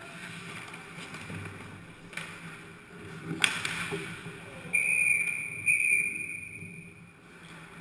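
A referee's whistle blows in two blasts, a steady high tone, stopping play in an ice hockey game. It follows a sharp crack of a stick striking the puck about three and a half seconds in, with the scrape and knock of skates and sticks on the ice before it.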